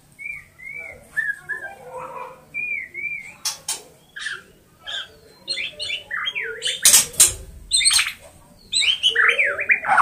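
White-rumped shama singing a varied run of short whistled notes that slide up and down. The notes come thicker in the second half and are mixed with several loud, harsh, noisy bursts.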